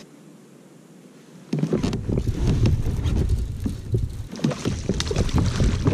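Low and quiet at first, then about a second and a half in a sudden loud rumble of knocks and rustles from the kayak and fishing gear as a hooked bass is fought on a bent rod. From about four seconds in, a hissing splash joins in as the fish thrashes at the surface.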